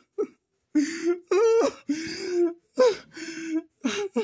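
A person's voice making wordless whimpering, sobbing sounds in a string of short bursts.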